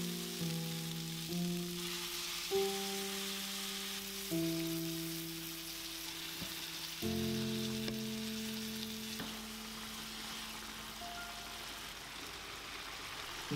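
Chicken and bell peppers sizzling and bubbling in a frying pan of simmering sauce, a steady hiss, under soft background music with slow held notes.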